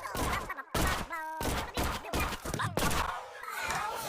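Slime being squeezed and kneaded, squelching and popping in a rapid, irregular series of bursts, with a short pitched tone about a second in.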